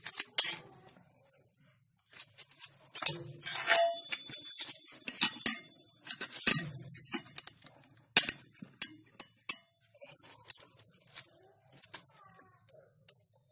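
Stainless steel bowl being set down and shifted on a bent-wire stand, metal clinking and knocking in a run of sharp taps, with one brief ringing note about four seconds in.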